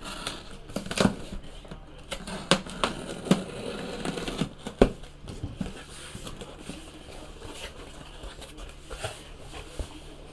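Utility knife cutting the packing tape on a cardboard box, then the box being handled and its flaps opened, with several sharp knocks and scrapes of cardboard in the first five seconds and quieter rustling after.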